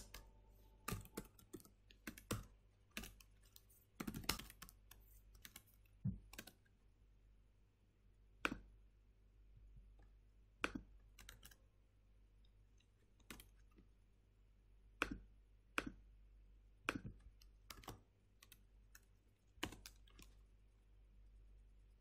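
Keystrokes on a computer keyboard, faint and irregular: quick runs of typing in the first several seconds, then single strokes every second or two.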